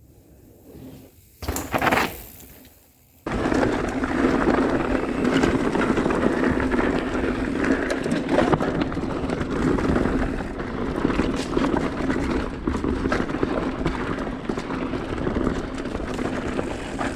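Mountain bike running downhill over a rocky trail: a steady rush of wind and tyre noise dotted with rattles and clicks from rocks under the wheels. It starts abruptly about three seconds in, after a quiet stretch with one short rustle.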